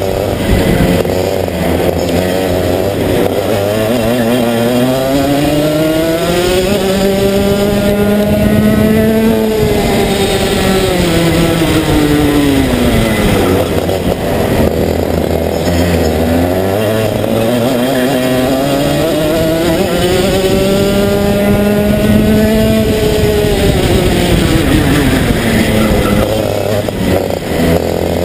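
Racing kart engine heard from on board, its pitch climbing as it accelerates along the straights and dropping as it slows for the corners, twice over.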